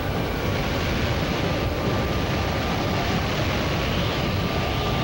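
Wind of a close F4 tornado blowing across a camcorder microphone: a loud, steady, deep rushing noise with no breaks.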